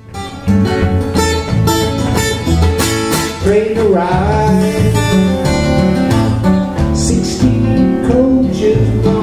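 Steel-string acoustic guitar played solo in a steady, driving rhythm, a repeating bass-note pattern under strummed chords. A man's voice comes in about four seconds in with a sliding sung line.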